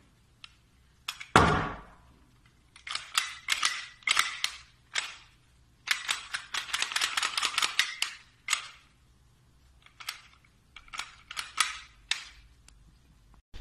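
Airsoft pistol being handled: a loud sharp snap about a second in, then repeated bursts of clicking and rattling of its parts, densest for about two seconds in the middle, with scattered clicks near the end.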